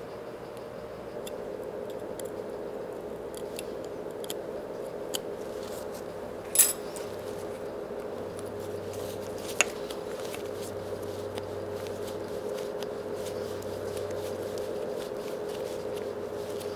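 Light metallic clicks and taps of a hex key and hand tools working set screws out of a DoAll drill press's down-feed housing, with a louder metal clink about six and a half seconds in and a sharp tick about three seconds later, over a steady hum.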